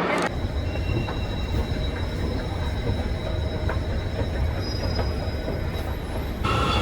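Train moving through a station: a steady low rumble with faint high-pitched wheel squeal. About six and a half seconds in the sound changes abruptly to a louder passage with stronger high tones.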